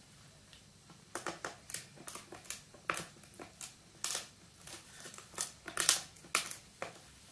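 Italian greyhound puppy chewing a dried pig ear: irregular crunching and cracking, a few crunches a second, starting about a second in.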